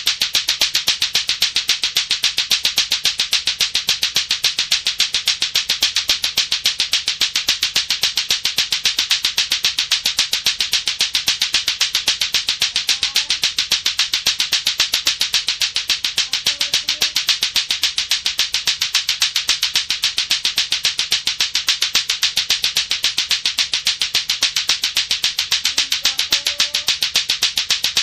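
Latto-latto clacker balls: two hard balls on a string knocking together in a rapid, steady clacking that keeps an even beat throughout.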